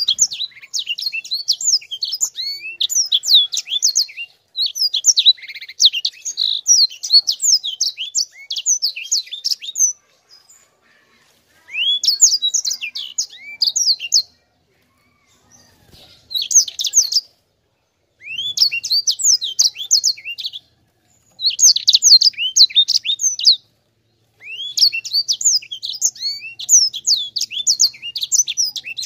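Sanger finch singing long runs of rapid twittering song, quick rising and falling notes strung together, in stretches of several seconds broken by short pauses.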